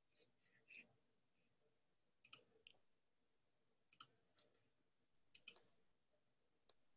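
Near silence with a handful of faint, sharp clicks spaced irregularly about a second or more apart, some in quick pairs.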